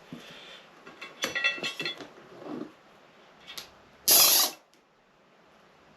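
Cable ties being zipped tight around a motorcycle tyre: a run of ratcheting clicks about a second in, then a quicker, louder rasping zip just after four seconds.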